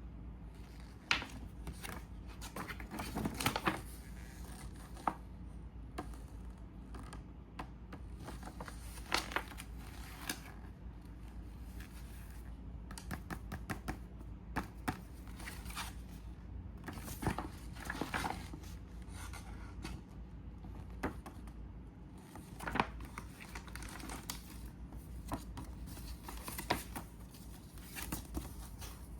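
Plastic packaging and bagged model-kit parts being handled, crinkled and torn open, with scattered sharp clicks of plastic pieces, over a steady low hum.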